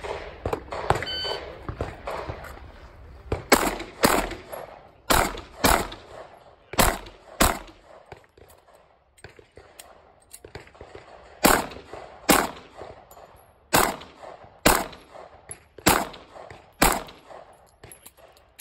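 An electronic shot timer beeps about a second in, then a Glock 43 9mm pistol fires a stage's string of about a dozen shots in quick pairs and singles. There is a pause of about four seconds midway, where the six-round magazine is changed.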